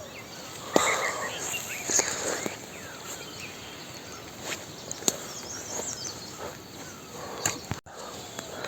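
Rural outdoor ambience: birds chirping faintly over insect noise, with a few sharp knocks at irregular intervals, the loudest about a second in.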